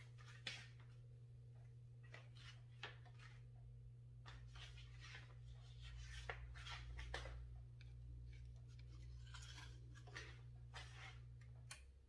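Near silence: a faint steady low hum that cuts off shortly before the end, with scattered light clicks and rustles of handling.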